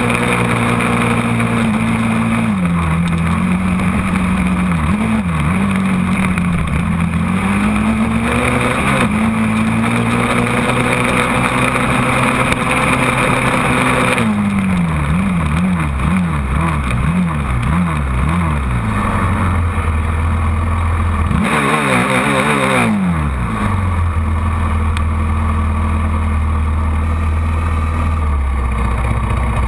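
Quad (ATV) engine running hard at steady high revs, its pitch dipping and rising with the throttle. About halfway through it revs up and down in quick repeated swings, then after a short rev it drops to a steady idle for the last several seconds as the quad stops.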